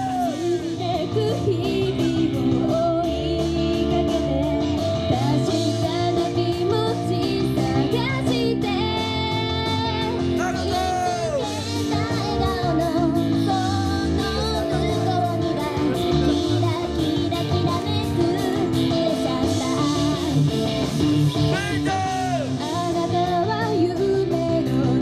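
Japanese idol pop song performed live: female voices singing over amplified band music with a steady beat.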